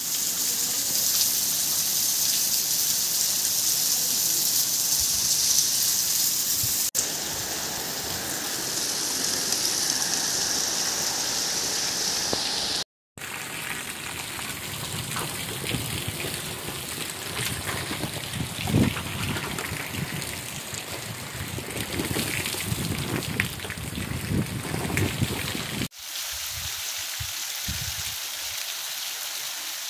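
Heavy rain falling steadily, with water streaming off a roof edge and running along the ground. The sound is an even hiss that changes abruptly three times, once after a moment of silence.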